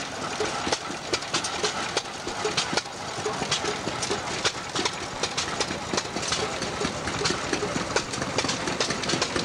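Vintage stationary engines running together, their sharp beats overlapping irregularly at several a second.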